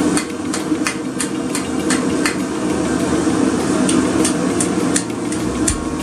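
Hammer strikes on a 3/8 inch steel round bar, a steady rhythm of about three blows a second, over a constant low hum.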